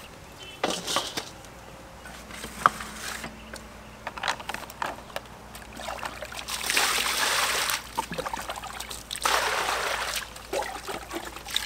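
Water poured from a plastic scoop into a stainless steel basin, splashing onto the pork in it: two pours, each a second or two long, in the second half. A few light knocks and clatters come before them.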